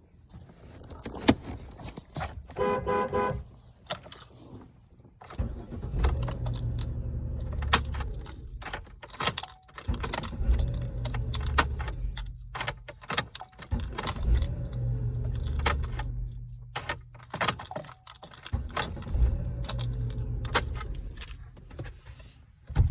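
2010 Chevrolet Impala being started and shut off several times, the engine cranking, catching and running for a few seconds each time, with keys jangling in the ignition. The car cranks and starts every time, so the reported no-crank fault does not show. A short horn toot sounds near the start.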